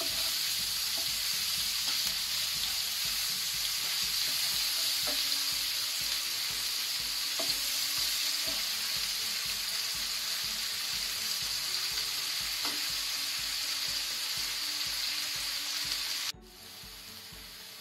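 Sliced onions, green chillies and curry leaves sizzling in hot ghee in a non-stick frying pan while a wooden spatula stirs them, with a faint knock of the spatula on the pan now and then. The onions are frying toward light brown. Near the end the sizzle drops suddenly to a quieter level.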